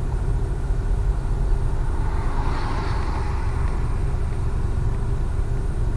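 Steady low rumble of a car heard from inside the cabin in traffic, with a hiss that swells and fades around the middle.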